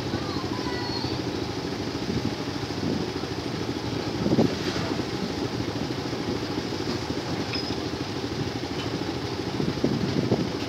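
Passenger train rolling slowly past at close range, a steady rumble of wheels on rails mixed with motorbike engines idling; a louder knock about four seconds in.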